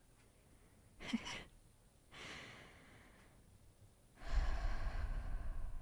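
A young woman's breaths close to the microphone: two short breaths, then a longer sigh from about four seconds in that rumbles on the mic.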